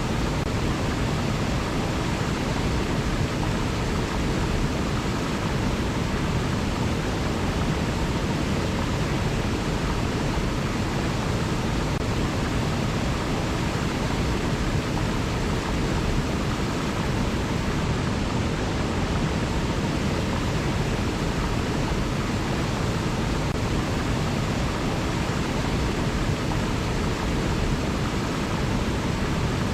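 River water rushing, a steady even hiss with no separate splashes, birds or other events standing out.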